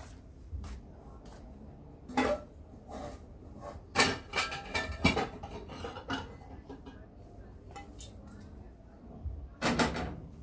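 Dishes, containers and fridge items clinking and knocking as they are handled and set down: a single clatter, then a busy run of knocks and clinks, then another clatter near the end.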